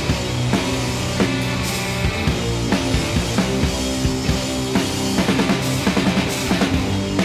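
Band music over the end credits: sustained instrument notes with a steady drum-kit beat, and a quicker run of drum hits about five to six and a half seconds in.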